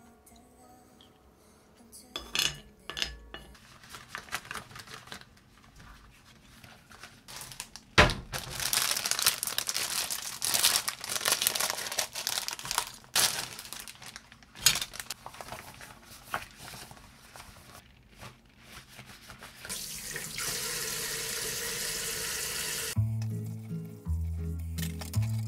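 Washing-up sounds at a kitchen sink: dishes clattering, a couple of sharp knocks and rustling, then water running steadily from the tap for a few seconds. Background music with a steady beat comes in near the end.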